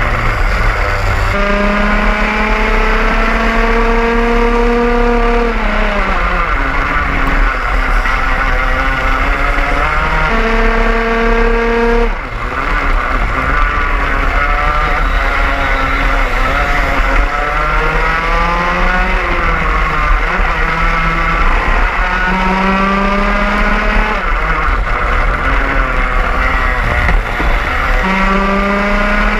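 Racing kart's two-stroke engine heard onboard at full throttle. Its pitch climbs for several seconds along each straight, then drops away into the corners, several times over. Other karts run close by, and wind rumbles on the microphone.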